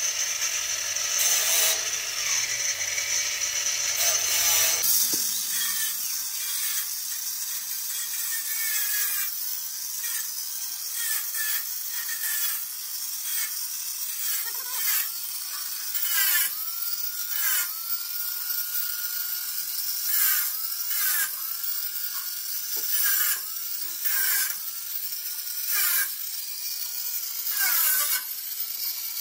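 Angle grinder cutting off excess steel from the enclosure door. Its whine sags and recovers again and again, about once a second, as the disc bites, with sharp scraping clicks.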